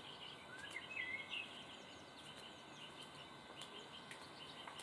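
Faint birdsong from woodland birds: scattered short chirps and whistles over a quiet outdoor background, with a couple of louder rising whistled notes about a second in.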